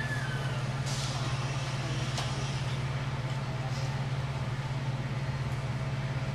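A steady low mechanical hum, like an idling engine, runs without change, with a few faint clicks and a brief high squeak right at the start.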